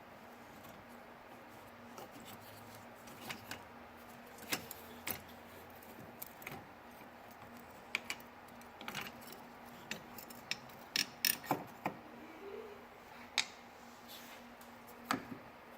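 Irregular light metallic clicks and clinks of hand-tool work, loudest in a quick cluster about eleven seconds in, as the two screws holding the hood latch are undone with a T30 Torx wrench.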